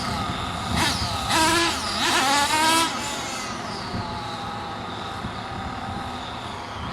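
A 28 cc RC truck engine revving in three quick blips in the first three seconds, its pitch rising and falling each time, then running on at a steadier, lower note.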